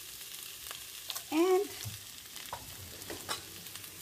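Boiled potato cubes sizzling in hot olive oil in a nonstick pan, stirred and turned with a silicone spatula that scrapes and taps the pan every so often.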